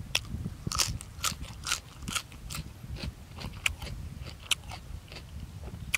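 Close-miked chewing of a crunchy raw green vegetable: crisp, irregular crunches, about two or three a second.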